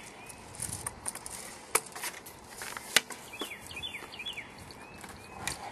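Ramrod packing wadding and BBs down a homemade airsoft cannon tube, with handling of the tube: a few scattered sharp clicks and knocks, the sharpest about three seconds in. Small birds chirp briefly past the middle.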